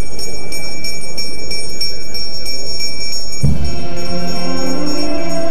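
Bells jingling and ringing over a noisy background, then background music with sustained chords starts suddenly about three and a half seconds in.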